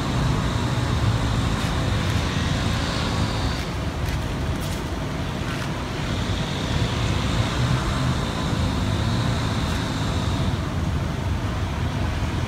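Wind rumbling and buffeting on the microphone. A faint, high, steady whine sounds twice, each time for a few seconds.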